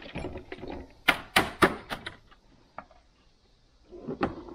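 Red plastic tap and die set case knocking and clicking as it is handled and its stubborn lid is pushed to close. The three sharp knocks about a second in are the loudest.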